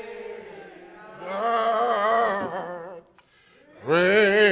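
Slow gospel singing: long, drawn-out notes with vibrato, a softer phrase and then a loud held note, a brief break, and another loud held note starting near the end.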